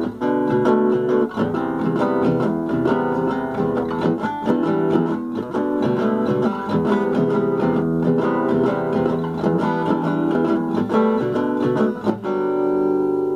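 Acoustic guitar played solo, a steady run of plucked notes and chords; about twelve seconds in, a final chord is struck and left to ring.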